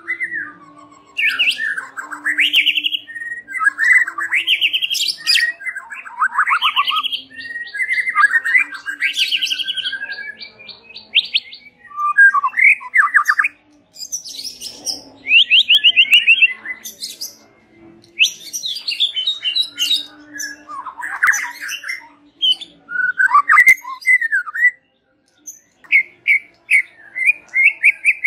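White-rumped shama singing loudly: a varied run of sweeping whistled notes, chattering calls and fast buzzy trills, in short phrases with brief pauses between them.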